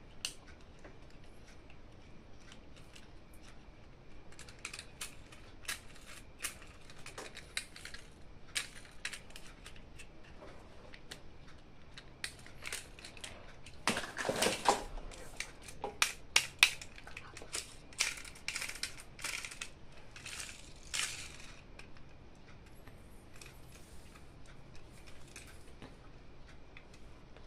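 Toys and their plastic and cardboard packaging being handled and opened by hand: scattered clicks, taps and short crinkling or tearing rustles. They come in a busier, louder flurry about halfway through and again a little later.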